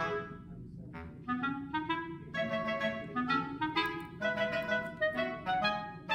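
Background music: a light melody of short, separate notes over a moving lower accompaniment line, thinning briefly about half a second in before picking up again.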